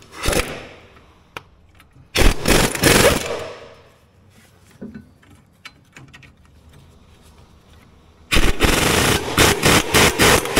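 Snap-on air impact wrench hammering on a dozer's track roller bolts, trying to break loose rusted, stubborn bolts. It fires in three goes: a short burst at the start, about a second of hammering a couple of seconds in, and a longer, uneven run near the end.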